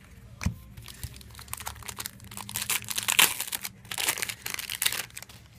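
Trading-card pack wrapper crinkling loudly as it is handled and opened, after a sharp click about half a second in.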